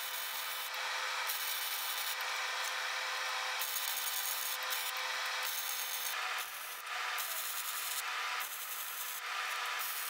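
Angle grinder working steel: a steady abrasive grinding hiss over the constant whine of the grinder's motor.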